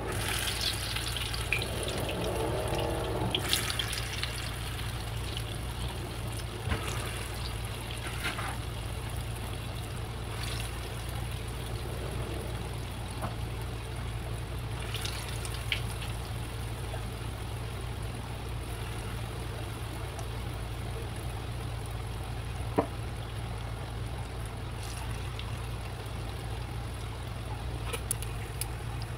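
Urad dal vadas deep-frying in hot oil in a pan: a steady sizzle and bubbling, with a few light clicks along the way.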